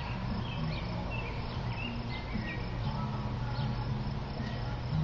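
Outdoor ambience: scattered short, high chirps over a low steady hum.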